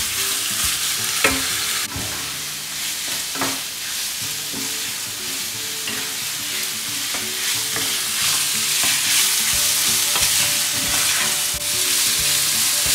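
Diced chicken sizzling in hot oil in a wok while a wooden spatula stirs it, scraping across the pan with a few sharp knocks against it.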